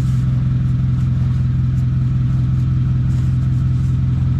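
Forklift engine idling steadily, a constant low hum.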